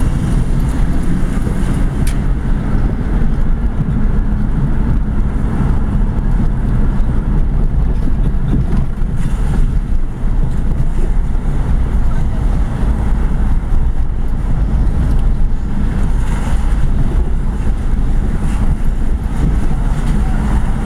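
Car driving along a city street, heard from inside the cabin: a steady low rumble of engine and tyre noise.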